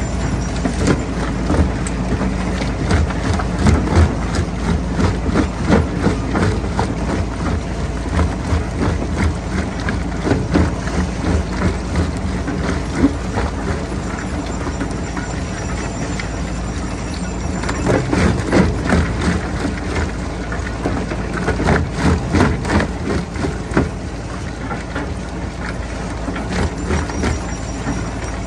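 Jaw crusher running with a steady low drone while rocks crack and clatter between its jaws, the cracking coming thicker a few seconds in and again about two-thirds of the way through.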